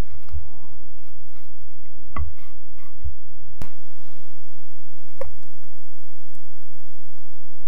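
A wooden spatula folds thick carrot cake batter in a glass bowl, with soft low thuds and a few light clicks. After a break, the batter slides from the bowl and drops into a metal cake pan, with one more click.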